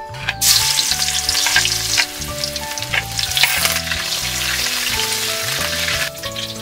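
Leaves and chopped aromatics dropped into hot oil in a wok, sizzling and crackling loudly as a spatula stirs them. The sizzle starts about half a second in and dies down near the end.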